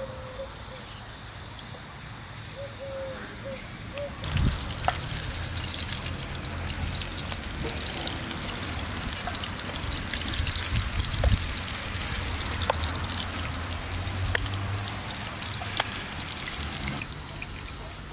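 Walnut paste being worked by hand in an unglazed clay grinding dish: a steady wet scraping with scattered small clicks, starting about four seconds in and easing off near the end.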